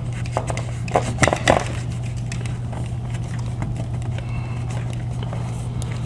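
A cloth rag rubbing and scuffing on a plastic switch plate cover, a few short strokes in the first second and a half, over a steady low hum.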